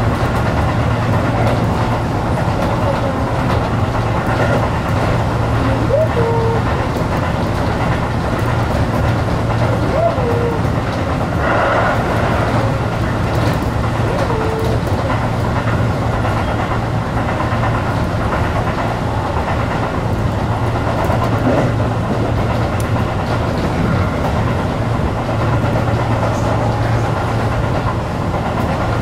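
Electric commuter train running at speed, heard from inside the front car: a steady hum and rumble of motors and wheels on the rails. About twelve seconds in, a brief rush of louder rail noise.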